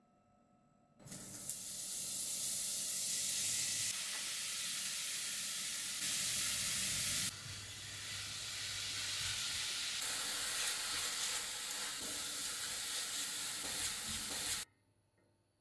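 Food sizzling as it is stir-fried in a pan and stirred with a wooden spatula. The sizzle starts abruptly about a second in, jumps in level a few times, and cuts off near the end.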